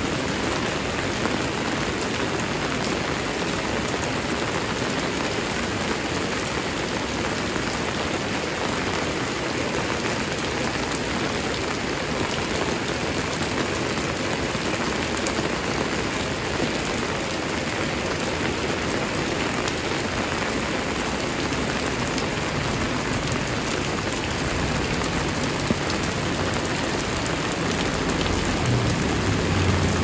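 Heavy rain falling steadily, a dense, even hiss of rain on surfaces, with a low rumble building near the end.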